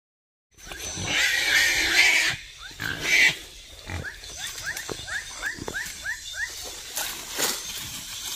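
Wild boar squealing loudly for about a second and a half, then a second, shorter squeal. A run of short falling chirps, about two a second, follows.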